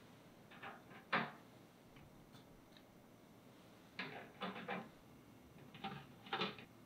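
Light taps and clicks of thin baked chocolate cookie strips being set down on a metal wire cooling rack, in a few small clusters, the sharpest about a second in.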